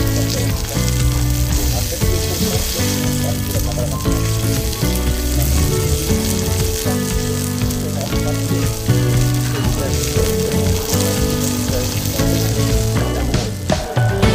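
Meat sizzling steadily on a tabletop yakiniku grill, mixed with background music carrying a stepping bass line.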